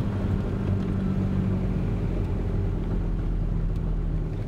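Car engine running and tyre noise while driving, heard from inside the cabin: a steady low hum.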